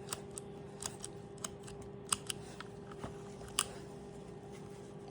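Smith & Locke combination lock's number dials clicking as they are turned, in irregular faint ticks, with two louder clicks about two and three and a half seconds in, over a steady faint hum.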